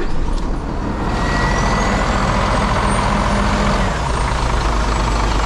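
Hino 500 Series truck's diesel engine running steadily at idle just after being started, with a faint thin whine climbing in pitch about a second in.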